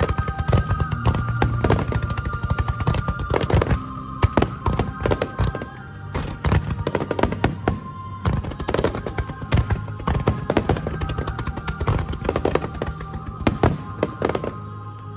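Fireworks display bursting in many bangs in quick succession, over music played for the show with long held notes.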